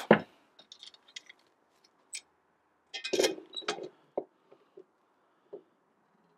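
Light clicks and taps of metal on cast iron, with a louder cluster of clinks about three seconds in as a lid lifter hooks onto the handle of a cast-iron Dutch oven lid, then a few single ticks.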